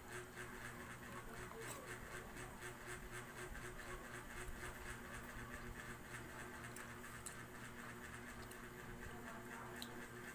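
Quiet room background: a steady low hum with a fine, even flutter, and a couple of faint clicks near the end.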